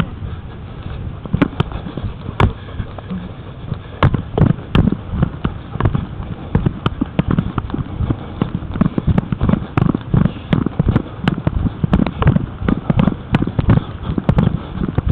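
Handling noise on a head-mounted camera as its wearer moves about: irregular sharp clicks and knocks over a constant low rumble with frequent thuds.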